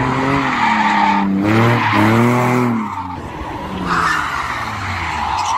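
BMW sedan engines revving hard while the rear tyres squeal and skid through a drift and a smoky burnout, the engine note rising and falling with the throttle over the steady tyre squeal.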